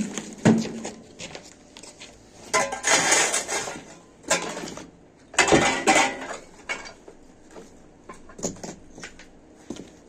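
Demolition rubble and broken tile pieces clattering and scraping on a bare concrete floor as the debris is handled, in irregular bursts with two longer scrapes.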